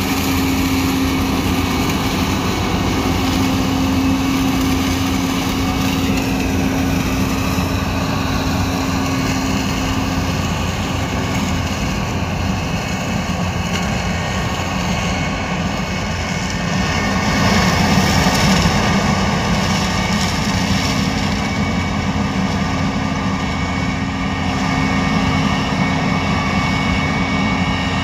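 New Holland CX6.90 combine harvester running under load while harvesting maize: a steady engine and threshing drone with a constant low hum, growing a little louder about two-thirds of the way through.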